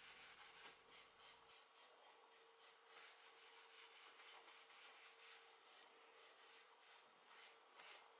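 Faint, repeated rubbing strokes of a cloth pad applying shellac button polish over a wooden surface.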